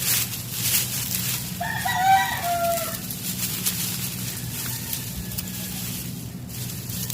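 A rooster crowing once, a single call of about a second and a half starting between one and two seconds in, over steady rustling.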